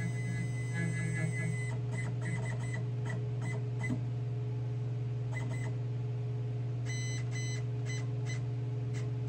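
Stepcraft D840 CNC router's stepper motors jogging the gantry in short moves, each a brief whine, in clusters about two seconds in, near the middle and again near the end, over a steady low hum.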